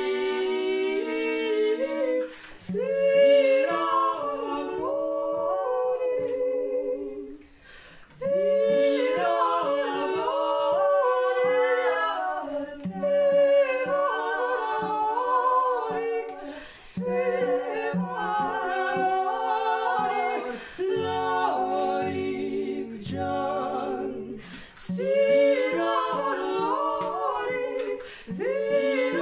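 Women's voices singing a cappella in layered harmony, a traditional folk song arranged for unaccompanied voices, the lines weaving and sliding in pitch. The singing breaks off briefly about eight seconds in, and a few short sharp sounds mark the gaps between phrases.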